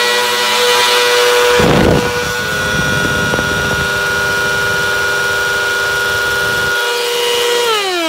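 Upright vacuum cleaner running with a steady whine. About two seconds in a loud noisy burst comes in, and a low rumble runs under the whine until about seven seconds. Near the end the motor is switched off and its whine falls in pitch as it spins down.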